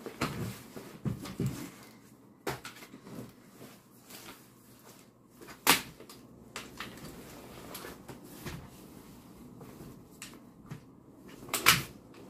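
Ergobaby Metro+ compact stroller being unfolded by hand: handling rattle from the frame and a few sharp clicks as its joints open out, the loudest about halfway through and again near the end.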